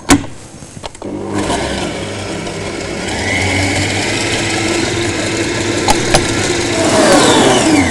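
Kenwood stand mixer's motor starting up and running with its balloon whisk beating warmed egg whites and sugar into meringue. The pitch rises around three seconds in as it speeds up, and falls near the end as the mixer winds down.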